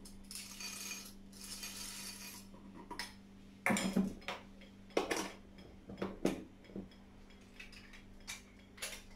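Scattered metallic clinks and knocks from handling a brass cylindrical hand coffee mill as it is filled and put together before grinding, with a hissy rattle in the first two seconds.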